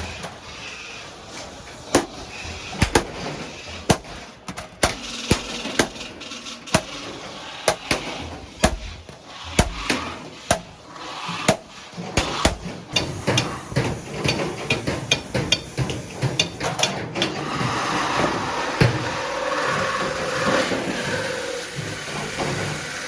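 Hand hammer striking the iron of a griddle (tawa) being forged, in irregular sharp blows, one or two a second and quicker for a stretch past the middle. From about two-thirds of the way in, a steadier rough noise builds under the strikes.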